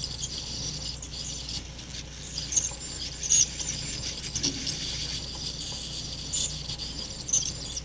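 Satelec P5 Neutron piezoelectric ultrasonic scaler with a 10Z tip scaling calculus on a plastic typodont: a high-pitched buzzing, scraping hiss that swells and dips as the tip sweeps along the tooth. Contact with the typodont makes it louder than it would be on real teeth.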